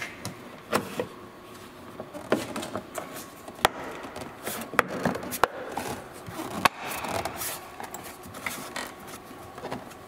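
Plastic trim cover rubbing and scraping against the car body as it is worked by hand, with several sharp clicks and knocks as its mounting pins are pushed toward their holes.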